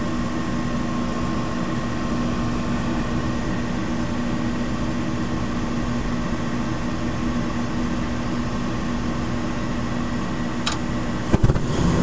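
Intertherm mid-efficiency gas furnace running just after ignition: the inducer fan motor's steady hum with the rush of the lit burners. A couple of knocks near the end, after which the noise gets louder.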